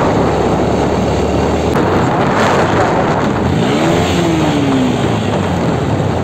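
Bajaj Pulsar NS 125 single-cylinder motorcycle engine running at a steady riding speed, heard from the handlebars with a steady rush of wind and road noise. About three and a half seconds in, a pitch rises and then slowly falls away.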